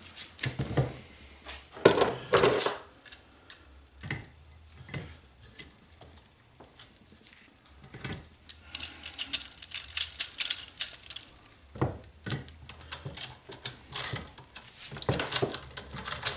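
Irregular small metallic clicks and clatters of a valve spring tool being worked against a small engine block's valve spring, with busier stretches of rapid clicking about halfway through and near the end. The tool is not going in.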